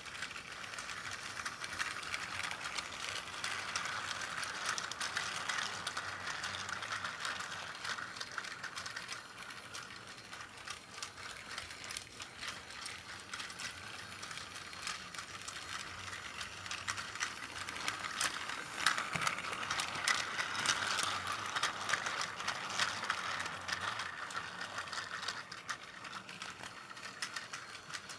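Plarail C12 steam locomotive toy running, its battery motor and plastic gearbox whirring steadily as it pulls a five-car container train around plastic track, with a patter of small clicks from the wheels. It grows louder twice as the train passes close by.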